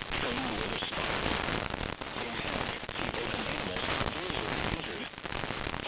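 Dense, crackly noise with a garbled voice faintly buried in it: alert broadcast audio swamped by noise or distortion.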